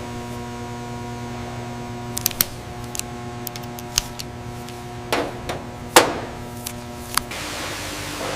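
Factory machinery humming steadily, with sharp knocks and clacks at irregular intervals, the loudest about six seconds in.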